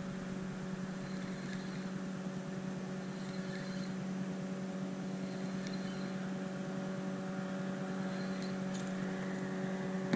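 A steady low hum made of a few even tones, unchanging throughout, with a few faint short high chirps and a couple of light clicks over it.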